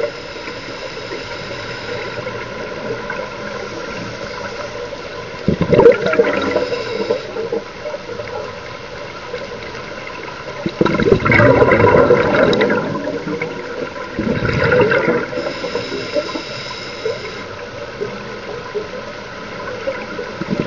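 Scuba regulator breathing heard underwater: a short hiss of each inhalation followed a few seconds later by a gurgling rush of exhaled bubbles, about three breaths over the stretch.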